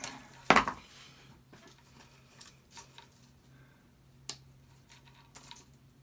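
Hand wire cutters working at braided picture-hanging wire, which is hard to cut. A single loud, sharp click comes about half a second in, followed by a few faint scattered metal clicks and taps as the tools are handled.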